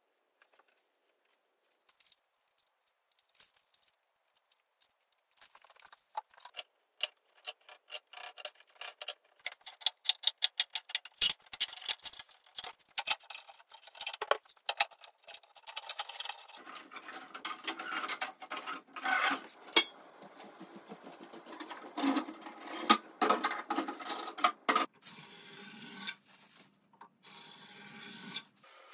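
Faint at first, then a quick run of sharp clicks and knocks as glued oak strips are handled and set together. From about halfway, a continuous rasping scrape in repeated strokes as a chisel is drawn along the clamped oak end-grain board, scraping off glue squeeze-out.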